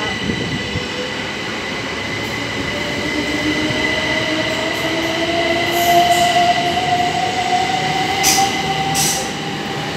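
Electric multiple-unit passenger train pulling out of the platform and accelerating past close by. Its traction motor whine climbs steadily in pitch over steady high electrical tones, and a few sharp clacks from the wheels come in the second half.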